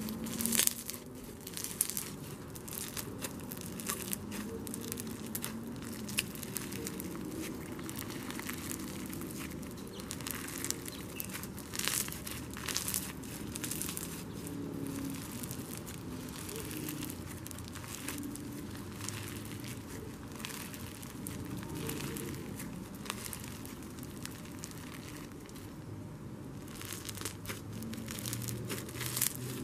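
Blue Bingsu bead slime being squeezed and kneaded by hand, its beads crackling and popping in a dense, continuous run of crunches.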